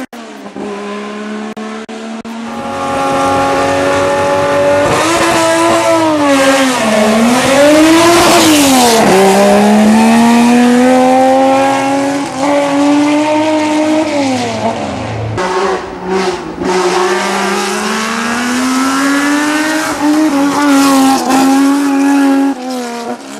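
Porsche 911 SC's air-cooled flat-six engine driven hard at racing pace, its revs climbing and then dropping sharply again and again with gear changes and lifts for the bends. It is quieter for the first couple of seconds, and the sound breaks off briefly a couple of times about two-thirds of the way through.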